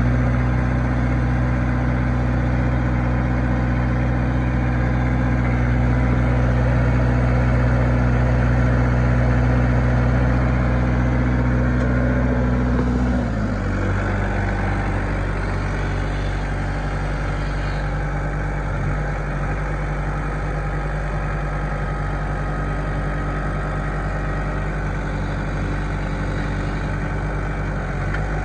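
2005 New Holland TC40A compact tractor's diesel engine running steadily. About halfway through, its speed drops with a step down in pitch, and it settles into a steady idle.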